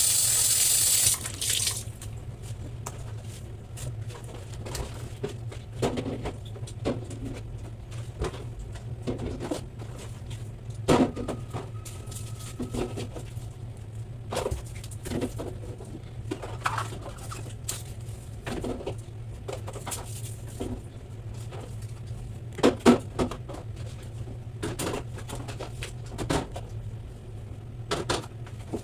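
Water running from a tap for about a second and a half, then scattered knocks and clinks of things being handled during refrigerator cleaning, over a steady low hum.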